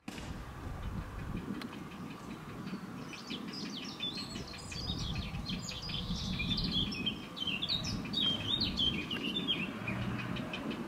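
Heron chicks in the nest chattering: runs of short, rapid high chirps that begin about three seconds in and go on until near the end, over a steady low rumble.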